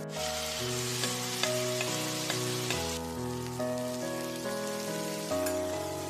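Beef stir-frying in a hot pan, a sizzle that is loudest in the first half and then dies down, over background music of sustained notes.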